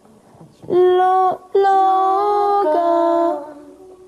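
A woman singing a cappella: a short held note about a second in, then two more held notes, the last one lower. She is rehearsing the pitch of a sung phrase.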